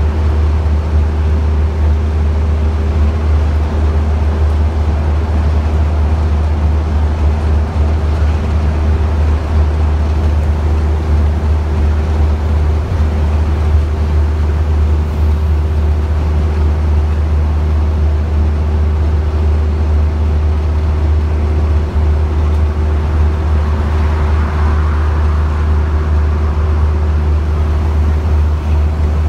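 Bus diesel engine and driveline running steadily under way, heard from inside the passenger saloon: a loud, even deep drone with a steady hum above it and road noise.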